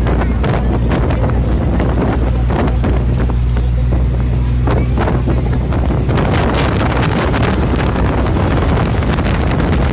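Bus engine and road noise heard from inside the moving bus: a steady low drone under wind rushing on the microphone, with frequent small rattles and knocks.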